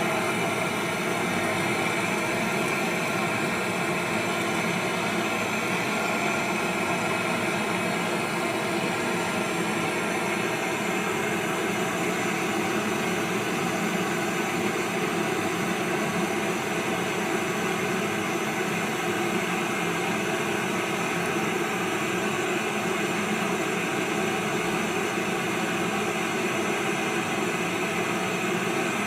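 Steady machine hum with a hiss and several held tones, unchanging throughout.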